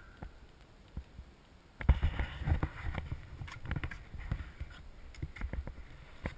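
Wind rumbling on a hang glider-mounted camera's microphone, setting in about two seconds in, with irregular knocks and rattles from the glider's frame and control bar as the pilot holds and shifts it.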